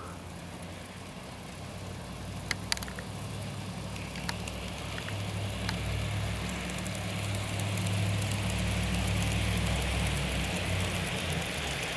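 G scale Bachmann Consolidation model steam locomotive with a Barry's Big Trains drive, its motor and gearing humming and its wheels running on the rails, getting louder as the train approaches. A few light clicks sound in the first half.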